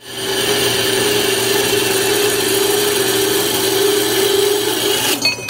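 Horizontal metal-cutting bandsaw cutting through steel band iron: a loud, steady cutting noise with a constant tone running through it, ending abruptly about five seconds in.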